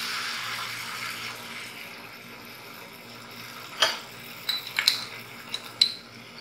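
Tamarind pulp hitting hot coconut oil in a non-stick pan and sizzling, loudest at first and fading over a few seconds. Then a small glass bowl clinks against the pan about six times as the thick pulp is knocked out of it.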